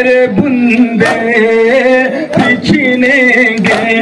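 A male voice chanting a nauha, a Shia mourning lament, over men beating their chests in unison (matam). The slaps land together about once every second and a third.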